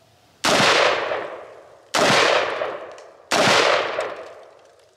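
Three rifle shots from a scoped rifle, about a second and a half apart, each a sharp crack followed by a long echo that dies away; a fourth shot begins right at the end.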